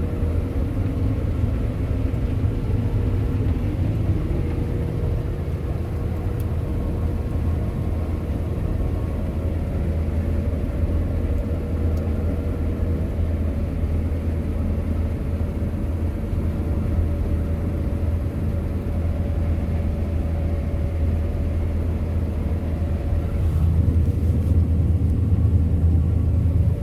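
Combine harvester running steadily while harvesting barley: a constant deep engine drone with a faint steady whine above it, growing a little louder near the end.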